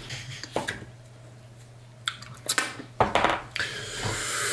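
A fork clicking and scraping against a paper plate as someone eats, with a handful of short clicks and a quick cluster about three seconds in. A heavy breath out follows near the end.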